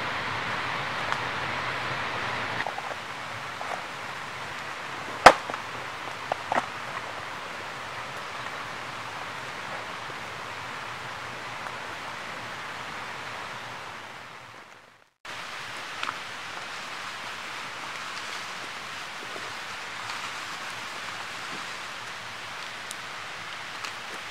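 Steady outdoor hiss, with a sharp click about five seconds in and a few softer knocks just after. It fades out at about fifteen seconds and returns as a similar steady hiss.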